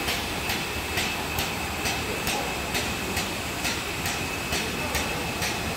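Workshop machinery running steadily: an even hum with a faint high whine and a regular tick a little over twice a second.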